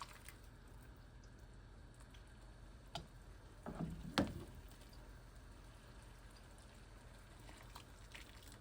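A few light clicks and knocks over a faint steady hum, the sharpest about four seconds in.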